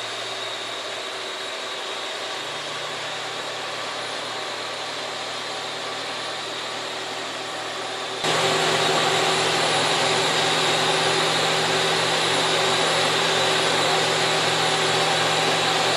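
Slipform concrete curb machine running steadily, a constant motor drone with a low hum. It gets louder in one step about eight seconds in.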